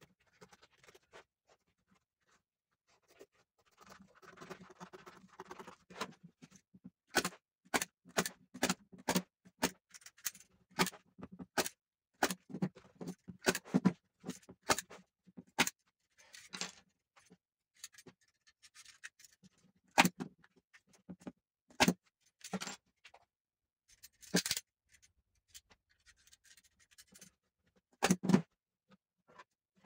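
Hand work on a wooden chair: scraping a few seconds in, then an irregular run of sharp taps and knocks, with a few more scratchy passages later.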